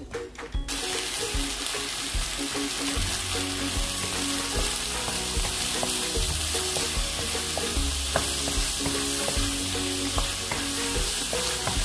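Diced pork sizzling in a pan as the last of its cooking water boils off and its own fat renders out, stirred with a wooden spoon. The sizzling starts suddenly just under a second in and then stays steady.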